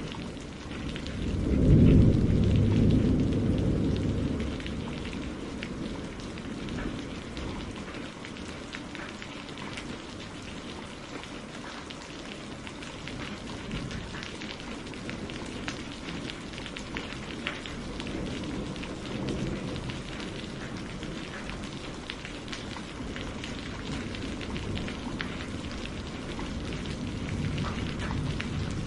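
Steady rain falling and pattering, with a low roll of thunder that swells about two seconds in and fades by about four seconds, and fainter rumbles later on.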